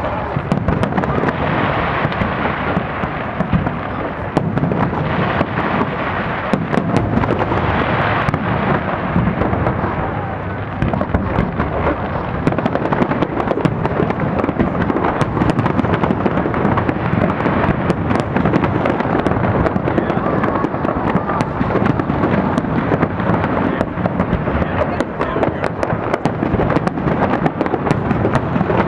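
Fireworks display in full swing: a dense, unbroken run of bangs and crackling bursts with no pause.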